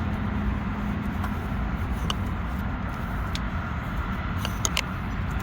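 Onan RV generator running with a steady low hum, with a few light clicks and ticks over it.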